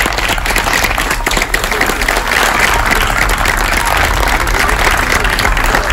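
A small audience applauding, many hands clapping steadily and thickly.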